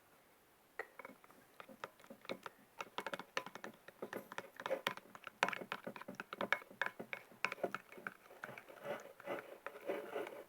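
Thickening homemade dish-soap-and-salt slime being stirred in a plate: rapid, irregular clicks, taps and sticky squelches, busier from about three seconds in.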